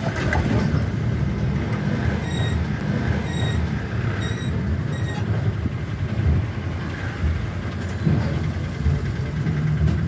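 Steady low engine and road rumble heard from inside a moving bus, with a few short, high-pitched beeps about two to five seconds in.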